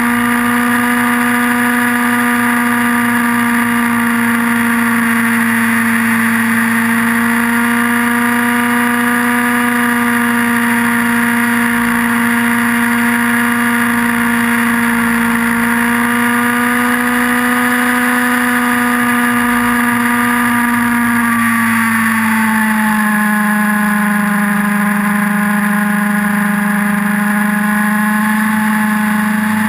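Nitro two-stroke glow engine and rotors of an Align T-Rex 700N radio-controlled helicopter in flight, a loud, steady high buzz heard from a camera mounted on the helicopter. About 21 seconds in the pitch dips slightly and holds lower.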